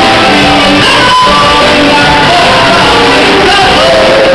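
Two men singing loudly into handheld microphones through a PA system.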